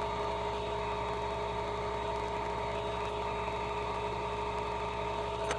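Steady hum of a hot-air board preheater's fan running under the circuit board, with a few unchanging tones over it. A faint click comes near the end.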